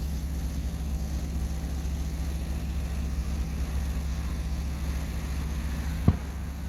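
A steady low hum with a single low boom about six seconds in, typical of a firework bursting at a distance.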